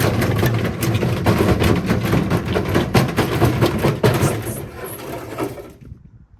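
Indesit washing machine drum spinning with bricks inside: a heavy rumble with a dense, rapid clatter of bricks banging inside the drum, the sound of a badly unbalanced load pounding the machine. The clatter slows and dies away between about four and six seconds in as the drum runs down.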